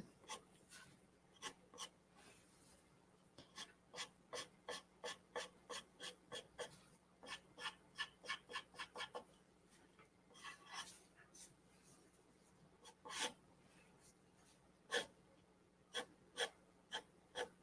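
4B graphite pencil scratching on drawing paper in short, quick hatching strokes, in runs with brief pauses, as the shading of a drawing is darkened for contrast.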